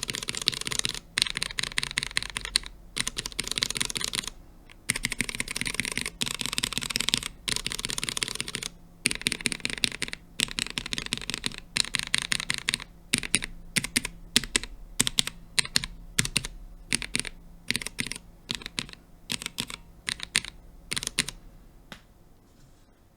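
Mechanical keyboard with Cherry MX Black Hyperglide linear switches and POM keycaps being typed on, in fast bursts separated by short pauses. About halfway through it changes to single keys pressed one after another, a few per second, and the clacking stops shortly before the end.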